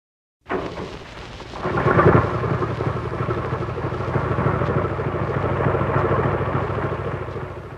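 Hot-rod engine sound effect opening the record: a rumbling engine that starts abruptly about half a second in, revs up to its loudest around two seconds, then runs on steadily and eases off slightly near the end.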